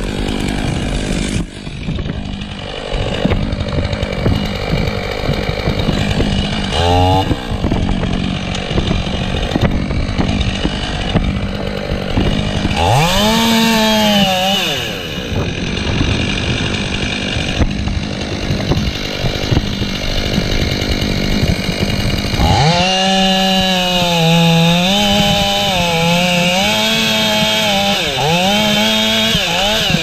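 Stihl chainsaw idling under heavy wind noise on the helmet camera's microphone and revved briefly twice, then held at full throttle for the last several seconds as it cuts through the trunk, its pitch wavering under the load.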